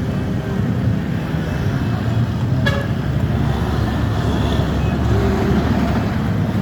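Steady engine and road rumble from passing traffic beside the road, with one short horn toot about two and a half seconds in.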